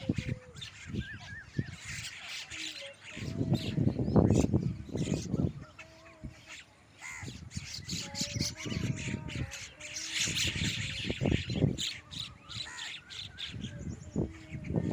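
Many birds calling and chirping at once, short calls overlapping throughout, with a louder low rustle about four seconds in.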